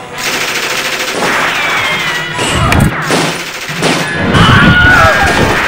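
Rifle gunfire as a film sound effect: loud shots and crashing impacts over a dense noisy din, heaviest about two and a half and four and a half seconds in.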